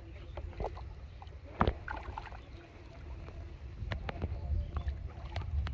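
Shallow water splashing and sloshing as a hooked carp thrashes at the bank edge while being drawn in, with a few sharp splashes or knocks, the loudest about a second and a half in. A low steady rumble runs underneath.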